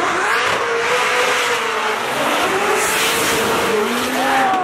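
Drift cars sliding past at close range, their engines revving high and wavering up and down in pitch as their tyres screech across the tarmac. The sound is loud and continuous.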